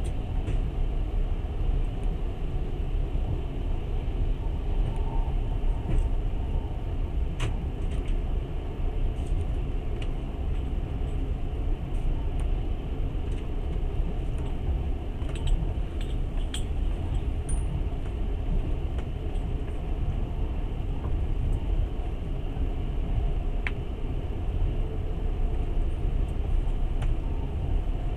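Passenger train carriage running along the track, heard from inside: a steady low rumble with a few faint clicks.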